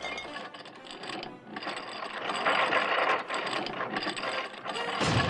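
Cartoon sound effect of rapid mechanical rattling and clattering, getting louder about halfway through.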